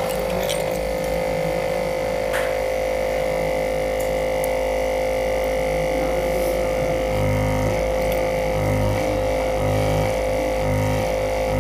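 A steady droning hum throughout, joined about seven seconds in by low pulsing notes that shift in pitch.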